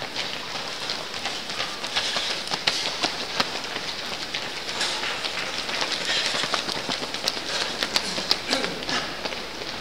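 Running shoes slapping on stone paving as several marathon runners pass, a quick irregular patter of footfalls, loudest near the end as one runner comes close.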